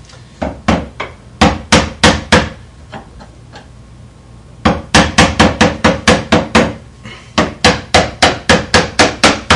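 A hammer tapping a screwdriver wedged into the seam of a door hinge to drive the hinge pin up and out. There are a few taps early, then after a pause of about two seconds a steady run of about four taps a second, broken briefly near the end.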